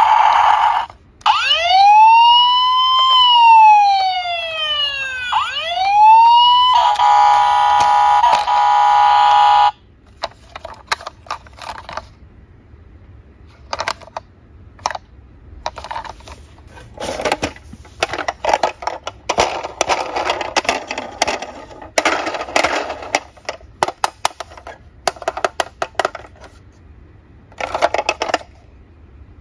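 Toy fire truck's electronic siren: a wail rising and falling twice, then a steady horn-like tone that cuts off suddenly about ten seconds in. After that, quieter clicking and rattling of the plastic toy being handled in a cardboard box.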